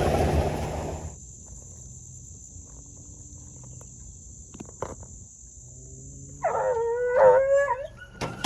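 A hunting hound bawling once, a long wavering howl about six and a half seconds in. Before it, vehicle noise dies away about a second in, and a steady high insect buzz carries on.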